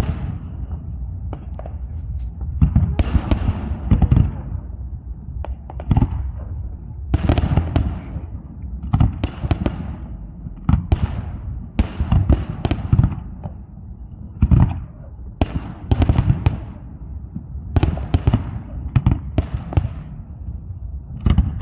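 Fireworks display: shells bursting in sharp bangs about once a second, with crackling and a low rumble between them.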